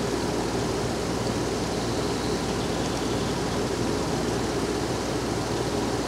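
Swimming-pool circulation pump running steadily, pushing water at full flow through the heat pump's pipework, with a steady low hum under an even rush of water. The heat pump's compressor has not yet started.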